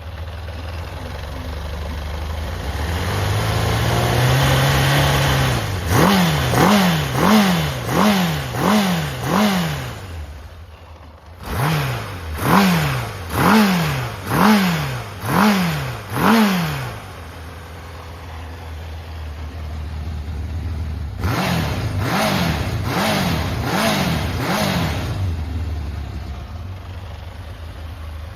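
Honda CB750F (RC04) air-cooled inline-four engine running, its throttle blipped in quick repeated revs in three runs of about five to seven blips each, dropping back to idle between them. The seller describes it as running strongly with high compression and no abnormal noise.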